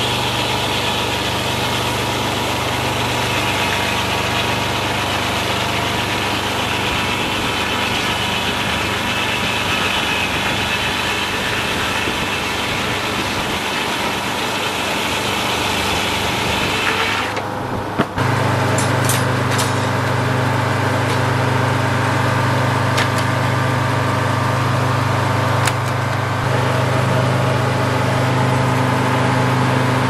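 Frick circular sawmill blade cutting through a pine log, with the Detroit Diesel engine that drives it running under load. A little past halfway the sawing stops abruptly and the diesel runs on steadily, with a few sharp knocks.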